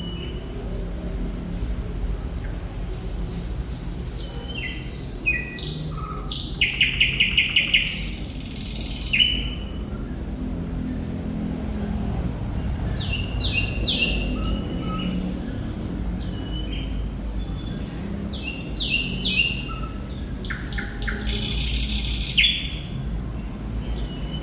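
Thrush nightingale singing in separate phrases of whistles and clicks. There is a fast run of repeated notes about a quarter of the way in, and harsh rasping bursts follow it and come again near the end. A low steady hum runs underneath.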